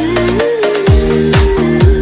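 Electronic dance music: a steady kick drum about twice a second under a held synth note and hi-hats.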